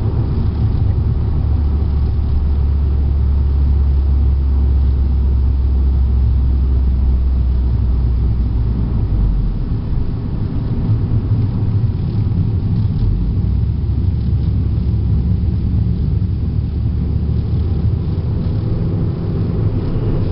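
Cabin sound of a tuned Volkswagen Golf GTI Mk6 at speed on track: its turbocharged 2.0-litre four-cylinder, fitted with an APR K04 turbo, 3-inch downpipe and modified exhaust, running with a steady low drone under road and wind rumble. The low drone eases about halfway through, then the engine keeps pulling.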